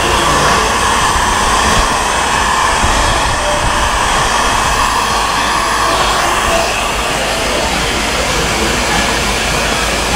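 Handheld electric heat gun running steadily, its fan blowing hot air in an even, continuous hiss.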